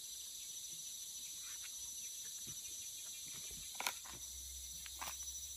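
Steady high-pitched insect drone, with a couple of short clicks about four and five seconds in.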